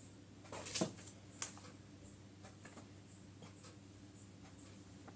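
Plastic car-vacuum accessories and packaging being handled: a short scrape and knock about half a second in, a sharp click a moment later, then faint light ticks.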